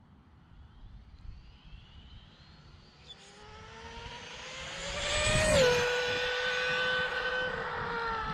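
High-speed electric RC car's brushless motor (Arrma Limitless on a Castle Mamba Monster X 8S ESC) whining as it accelerates at full throttle. The pitch climbs, peaks loudest about five and a half seconds in with a small drop in pitch, then holds steady: the motor at its redline.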